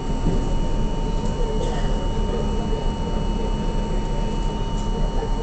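Steady hum and rumble inside an R42 subway car, with two constant high tones whining over it.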